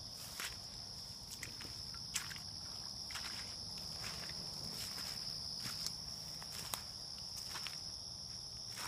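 Footsteps of a person walking a trail, irregular and roughly one a second, over a steady high-pitched chorus of night insects.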